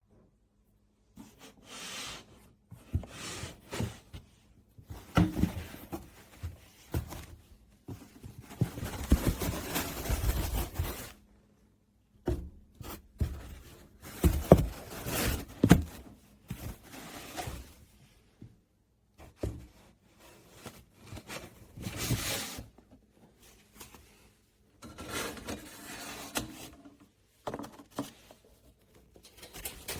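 Irregular knocks, clicks and scraping noises of objects being handled, with a longer stretch of scraping about eight seconds in and short pauses between.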